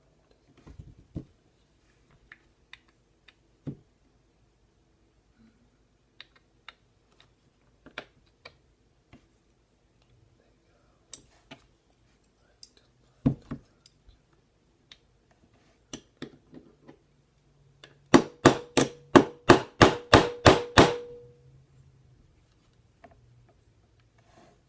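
Small metal gun parts clicking and knocking as they are handled, then a quick run of about eleven loud hammer taps in under three seconds, each with a metallic ring. The taps are on a punch to drive a tight frame pin out of a Smith & Wesson M&P Shield 9mm pistol.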